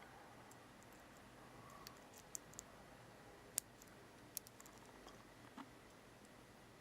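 Faint, scattered metallic clicks of a lock pick working the pin tumblers of a Lockwood 50 mm laminated padlock, with the sharpest click about three and a half seconds in.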